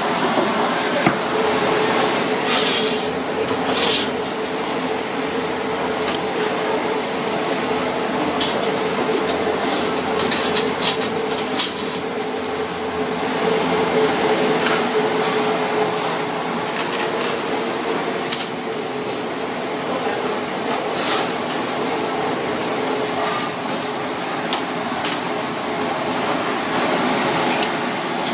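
Steady whirring hum of kitchen machinery, such as a fan or burner, with scattered sharp clicks and knocks of utensils and cookware.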